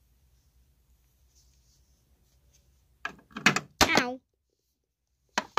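Quiet room tone, then about three seconds in a brief loud burst of a voice with a sharp knock, and a single sharp tap or click near the end.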